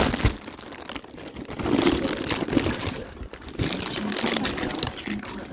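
Cardboard shoe box and its packaging being handled, rustling and crunching in irregular bursts.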